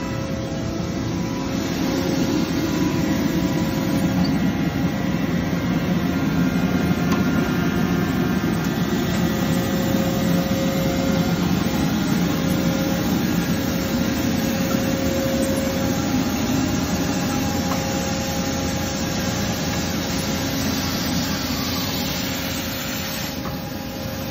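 Industrial machinery running steadily: a dense, loud hum with a few constant tones over it, swelling slightly after a couple of seconds and easing near the end.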